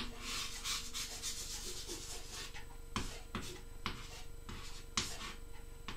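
Chalk scratching across a chalkboard in short drawing strokes, with a few sharper ticks from the chalk on the board.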